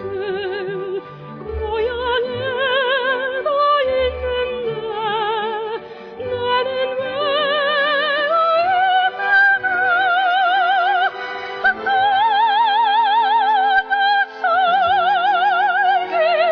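Background music: a slow melody with wide, even vibrato on long held notes, over a low bass line.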